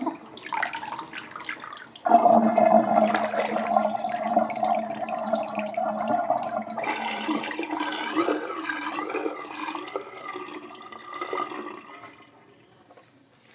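Water swirling down a bathroom sink's drain in a whirlpool, gurgling and sucking. About two seconds in, a steady pitched tone sets in over the rush; it turns wavering later and dies away near the end as the sink empties.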